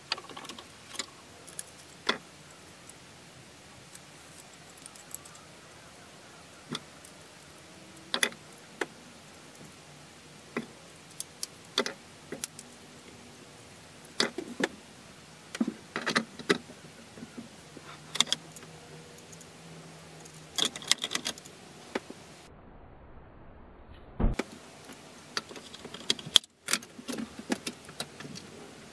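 Handling of a guided knife-sharpening kit's metal blade clamp as a knife is fitted and the clamp screw tightened: scattered metallic clicks and clinks at irregular intervals, with a sharper knock a little over two-thirds of the way through.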